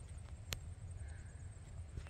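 Soft footsteps of someone walking over a low steady rumble, with one sharp click about half a second in.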